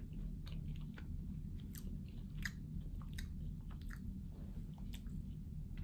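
A person chewing fried chicken with the mouth closed: faint, irregularly spaced mouth clicks.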